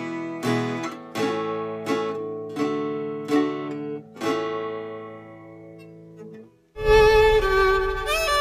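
Acoustic guitar played with the fingers: a series of plucked chords, one every half-second or so, the last left to ring and fade. About 7 s in, a bowed violin melody with a fuller, deeper string backing cuts in abruptly.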